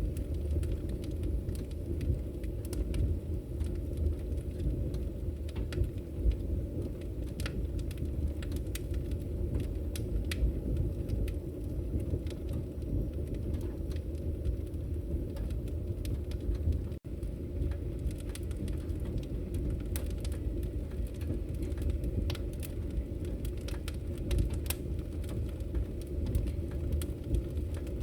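Wood fire burning: a steady low rumble of the flames with frequent small crackles and pops scattered through it. The sound cuts out for an instant a little past halfway.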